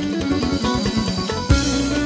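Electronic arranger keyboard playing an instrumental melody over its own accompaniment, with a quick run of low notes and then a loud accented hit and sustained bass about a second and a half in.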